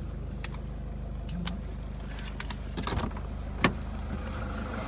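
Car running at low speed, heard from inside the cabin: a steady low engine and road hum. A few light clicks, with one sharp click about three and a half seconds in.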